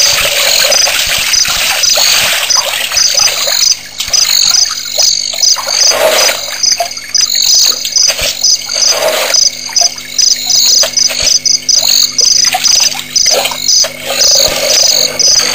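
A night chorus of chirping insects: a rapid, high-pitched pulsing that keeps up steadily, with a few shorter, lower calls mixed in.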